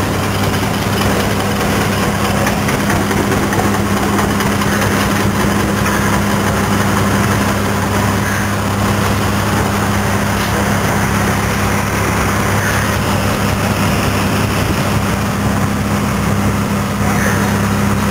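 Airless paint sprayer's pump unit running steadily under load as paint is sprayed, a constant loud machine drone with a deep, even hum.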